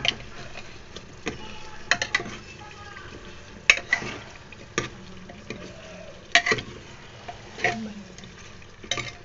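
Metal ladle stirring chicken korma in a metal pressure-cooker pot, scraping and clinking against the sides about once a second. The thick curry sizzles steadily underneath.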